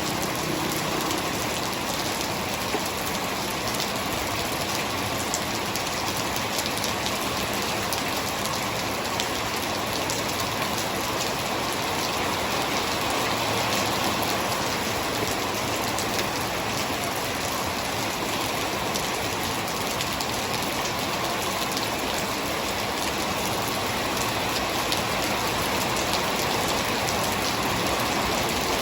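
Heavy rain falling steadily, a constant hiss of downpour with many small drop ticks on surfaces.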